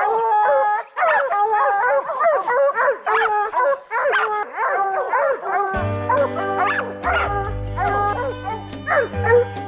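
A pack of bear hounds baying and yipping together at a treed bear, many voices overlapping. Background music comes in under them about six seconds in.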